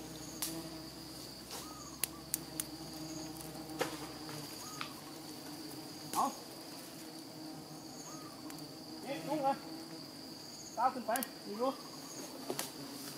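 Insects: a steady high cricket trill over a low steady hum, with faint short chirps every couple of seconds and a few louder wavering calls in the last few seconds.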